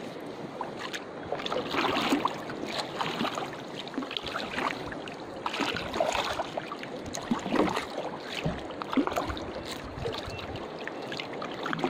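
Water lapping and sloshing against the hull of a small outrigger canoe, with irregular small splashes and knocks.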